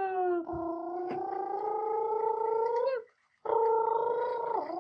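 A person's voice making a long, rolling "brrrr" engine noise for a toy bus being pushed along the track, broken off briefly about three seconds in and then taken up again.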